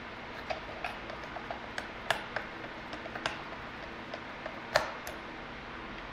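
Irregular small clicks and ticks as a screwdriver turns a screw into the plastic rear case of a Sony clock radio, the loudest about two, three and five seconds in.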